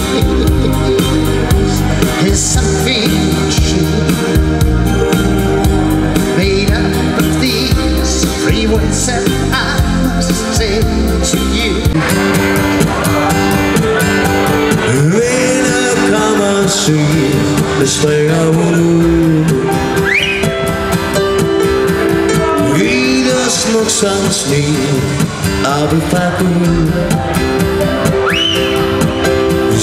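Live dance-band music played on electronic keyboards through a PA, with a heavy, steady bass beat; about twelve seconds in, the bass drops away, leaving held keyboard notes with a few rising slides.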